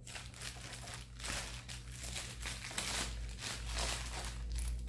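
A white padded mailer envelope crinkling and rustling in dense, irregular crackles as it is handled and cut open with scissors.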